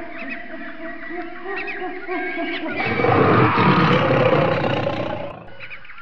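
A tiger roars once, a rough, low call lasting about two and a half seconds, starting about three seconds in. It rises over a steady background of high chirps.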